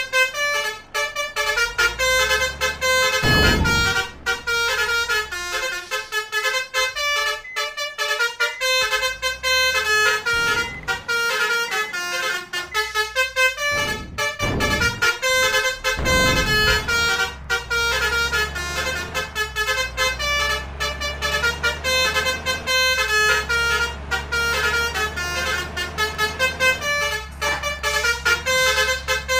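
Indonesian bus 'telolet' multi-tone musical air horn (Basuri horn) playing a fast tune of short notes without a break. Vehicle engine rumble swells and fades a few times underneath.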